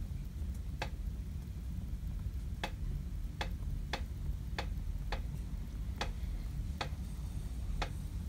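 Sharp clicks at uneven intervals, about one every half second to a second, over a low steady rumble.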